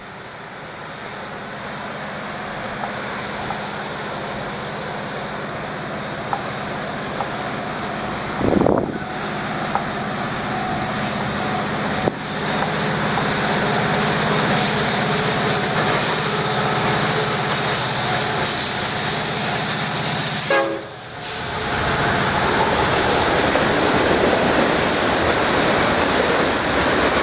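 CSX freight train led by an EMD SD70MAC and a GE AC44CW diesel-electric locomotive, approaching and passing below. The engine drone grows steadily louder, with a short horn blast about nine seconds in. After a brief dip about three quarters of the way through, the louder rumble and rattle of the cars rolling by takes over.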